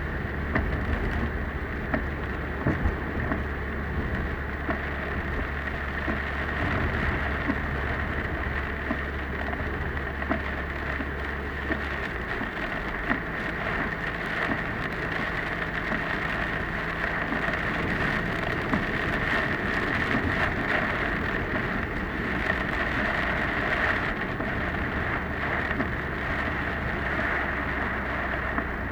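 Typhoon rain hitting a moving car, many small drop impacts over a steady wash of road and engine noise. The low engine and road hum drops about twelve seconds in.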